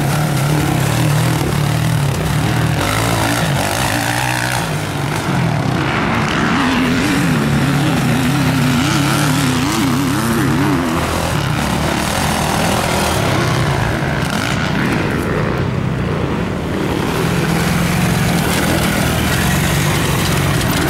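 Motocross bike engines running hard along the track, loud and continuous. For several seconds in the middle the engine pitch rises and falls rapidly as the throttle is worked over the bumps.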